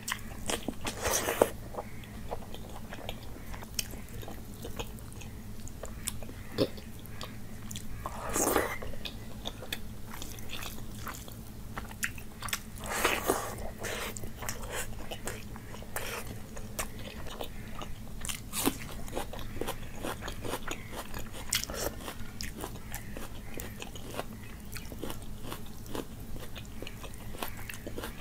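Close-miked chewing and mouth sounds of eating rice and curry by hand: a steady run of small clicks, with a few louder bursts now and then.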